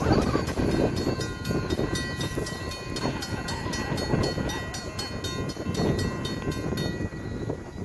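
Railroad grade-crossing warning bell dinging rapidly and evenly, then stopping near the end, over gusts of wind buffeting the microphone.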